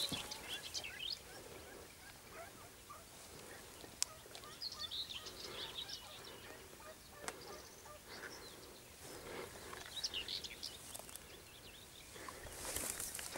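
Faint birds chirping and calling in the scrub, in short scattered phrases, with a couple of sharp clicks.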